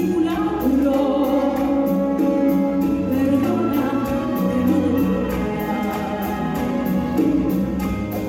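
Soprano singing sustained phrases into a microphone, accompanied by a full symphony orchestra, with a steady beat in the percussion.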